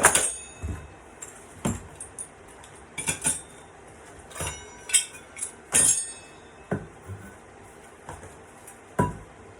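Steel hole saw parts being handled, clinking and knocking against each other and the case in a series of sharp metallic clinks at uneven intervals, the loudest right at the start.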